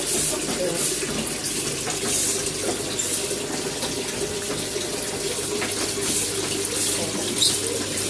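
Water running and splashing steadily, as in washing out an animal cage.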